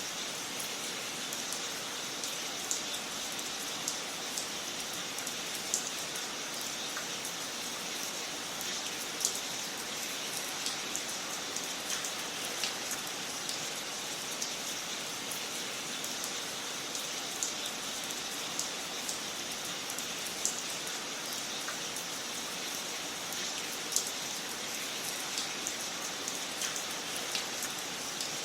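Wood fire crackling in a fireplace: a steady hiss with frequent small, sharp pops at irregular intervals and a few louder cracks scattered through.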